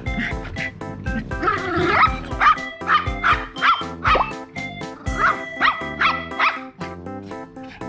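Toy poodles barking and yipping in a run of short, high calls as they play-fight, over background music with a steady beat.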